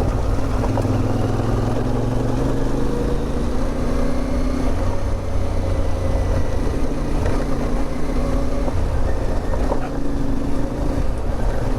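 CFMOTO 450MT's parallel-twin engine running steadily under way, its note shifting slightly up and down, over a constant rush of wind noise.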